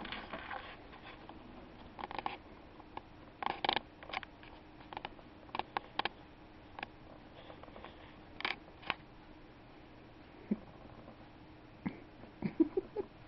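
Balls on a small tabletop toy pool table knocking and clicking as cats bat them about with their paws: scattered sharp clicks and knocks at irregular intervals, with a quick cluster near the end.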